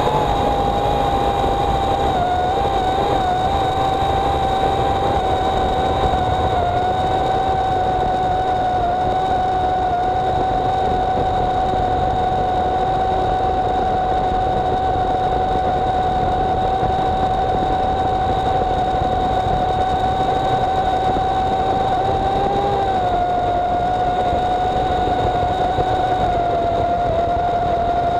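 EGO CS1800 56-volt cordless electric chainsaw cutting steadily through a large log, its motor and chain giving a loud, even whine. The pitch sags slightly about two-thirds of the way through as the saw works under heavy load.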